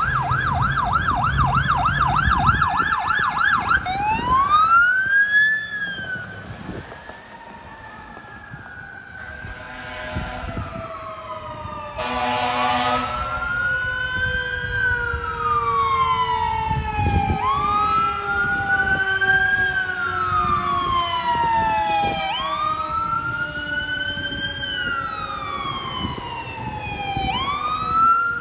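Fire apparatus sirens on an emergency response: a fast yelp that switches to a slow rising-and-falling wail about four seconds in, each sweep taking about five seconds. An air horn blast sounds for about a second just before the midpoint, and a second siren tone falls slowly underneath.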